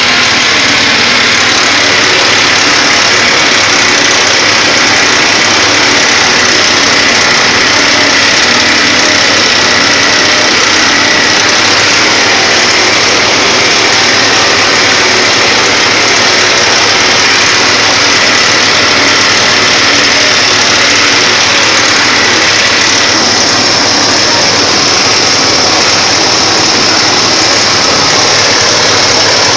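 Motor-driven coconut-milk press machine running steadily, a loud even mechanical noise with a faint high whine over it.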